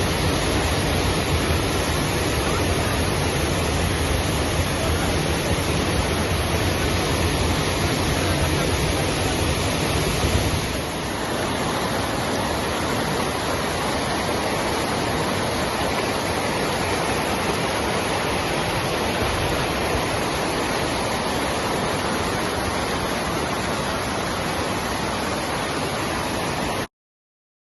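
Fast-running waterfall rushing steadily, with a deeper rumble underneath for about the first ten seconds that then drops away. The sound cuts off suddenly near the end.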